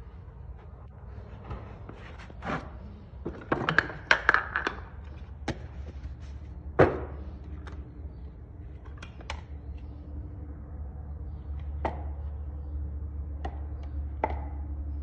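Scattered knocks and taps, a quick run of them about four seconds in and the loudest single knock about seven seconds in, over a steady low hum.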